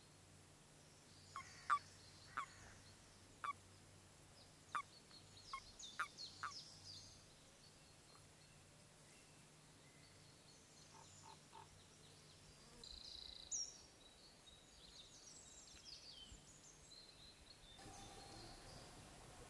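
Common toads calling in the mating season: a string of short, sharp croaks, about eight in the first seven seconds, then fewer.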